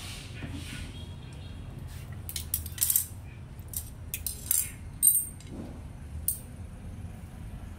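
Several light metallic clinks and short rattles, of small metal objects being handled, come between about two and six and a half seconds in, over a steady low hum.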